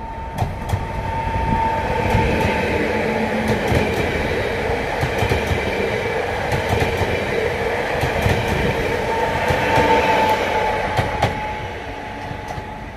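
Passenger multiple-unit train passing close by. Its running noise swells over the first couple of seconds, holds, then fades near the end. Sharp wheel clicks and a steady high tone sit over the rumble.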